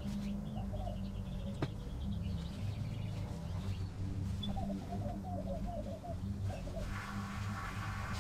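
Birds calling, with a run of short, low repeated notes about halfway through and a few high chirps, over a steady low hum.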